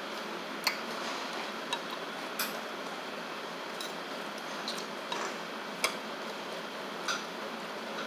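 Scattered light clicks and taps of eating utensils against dishes during a meal, about eight in all, irregularly spaced, over a steady background hiss.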